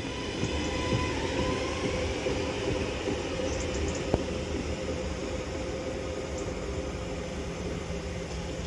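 Northern Class 331 electric multiple unit pulling away from the platform: a steady rumble of the train moving, with a faint electric motor whine. There is a single sharp click about four seconds in.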